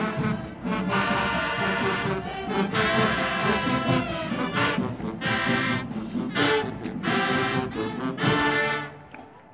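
Marching band playing: loud brass chords over drums with sharp percussion hits, the music cutting off sharply near the end.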